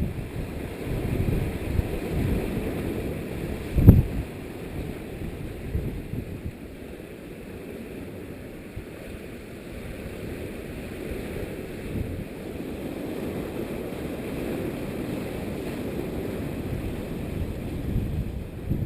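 Strong, gusty wind buffeting the camera's microphone, a steady low rumble with one loud thump about four seconds in.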